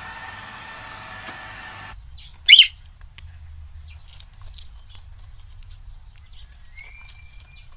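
A robot vacuum's motor whirring steadily, cutting off after about two seconds. Then a parrot gives one short, loud screech, followed by faint scattered chirps and a short rising whistle near the end.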